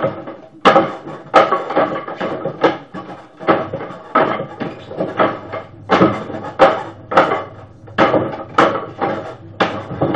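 Forearms and hands striking the wooden arms of a homemade Wing Chun wooden dummy (mook jong): a run of sharp wooden knocks and clacks, each with a short ring, roughly one every half second, some in quick pairs.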